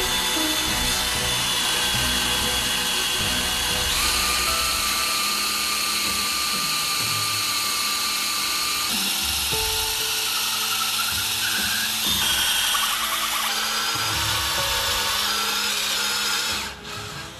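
Cordless DeWalt drill with a spade bit boring a deep hole into a solid oak beam, running steadily until it stops near the end. Background music plays with it.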